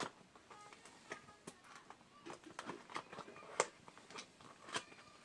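Irregular sharp clicks and taps from handling a power bank and its packaging, the loudest about three and a half seconds in.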